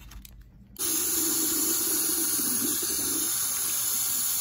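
Sink faucet turned on about a second in, then water running steadily from the tap into the sink as a makeup brush is rinsed under the stream.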